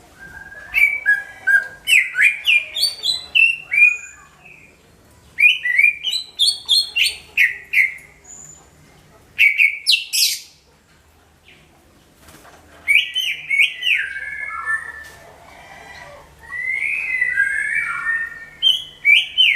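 Green leafbird (cucak ijo) singing loudly: quick runs of varied whistled and chattering notes, sliding up and down in pitch, in phrases of a few seconds with short pauses between them.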